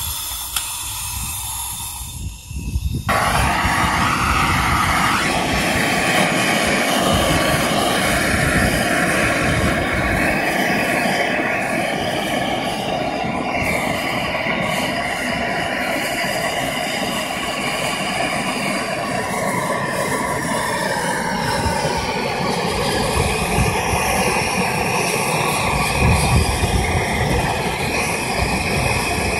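Handheld propane torch burning steadily, its flame held on a brass raw-water pump cover to heat it for silver soldering. The rush gets louder about three seconds in, then stays level.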